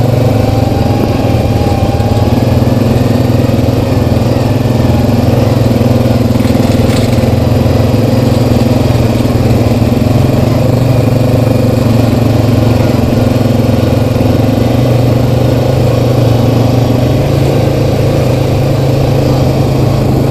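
Single-cylinder ATV engine running at a steady trail-riding pace, heard from the machine itself as a loud, even drone.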